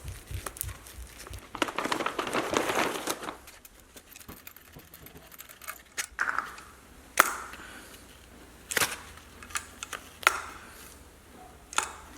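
A rustle, then five sharp clinks spaced about a second and a half apart.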